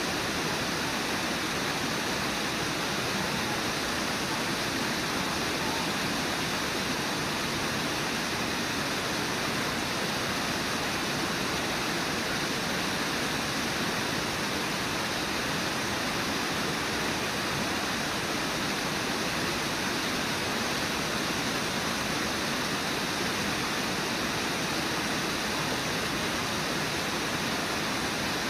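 Steady rush of a river waterfall and the white-water rapids below it, unchanging throughout.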